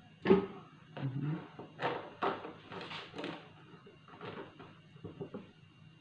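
Banana pieces being scraped off a plastic cutting board into a blender jar: a series of short knocks and clatters, the loudest just after the start.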